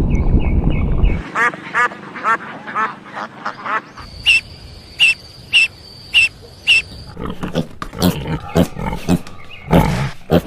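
Farm animal calls in several short edited clips: a quick run of short calls, then five evenly spaced calls about half a second apart, then more scattered calls.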